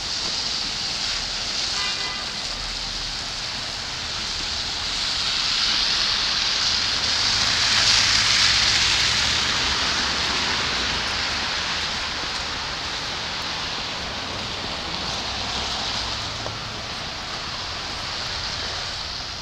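Cars passing on a snowy, wet street: tyre hiss that swells to a peak about eight seconds in and fades, with a smaller swell later on.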